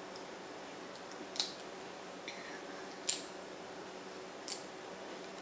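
Boiled shrimp being peeled by hand: three short, sharp crackles of the shell breaking, about a second and a half apart, over a faint steady hiss.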